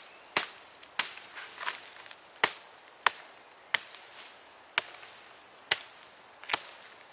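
A Hultafors Ekelund hunting axe chopping into a birch branch held on a wooden chopping block. There are about nine sharp single strikes at an uneven pace of roughly one a second.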